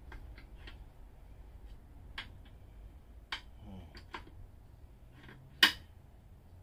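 Scattered metal clicks and knocks of a detachable sissy bar being worked onto its docking hardware on a Harley-Davidson Softail Slim, the bar not yet seating. One sharp knock, the loudest, comes near the end.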